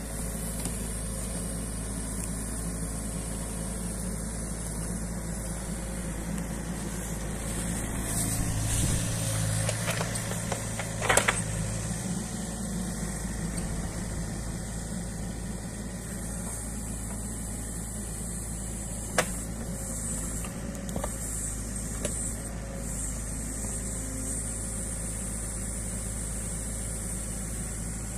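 New Holland Kobelco E50.2 mini excavator's diesel engine running steadily as it digs out a ditch, a little louder for a few seconds around the tenth second. A few sharp knocks sound over it, the loudest about eleven seconds in.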